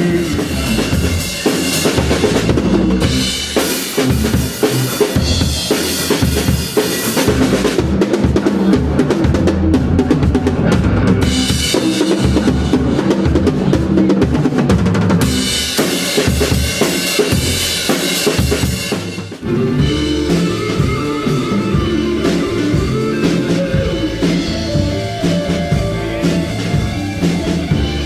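Rock band music with the drum kit to the fore: snare, bass drum and cymbals. About 19 seconds in there is a brief break, after which the band carries on with more guitar.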